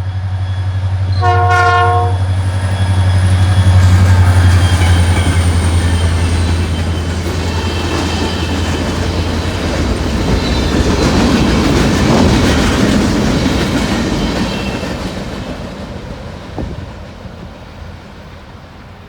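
Norfolk Southern local freight train passing: the locomotive's diesel engine drones loudly, with one short horn blast about a second and a half in. After about ten seconds the engine sound drops away, leaving the rumble and wheel clatter of the few cars, which fades out near the end.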